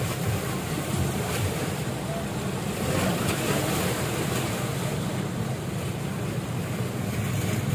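Floodwater rushing and sloshing around a car driving slowly through a flooded road, over a steady low engine hum, heard from inside the car's cabin. The rush swells about three seconds in.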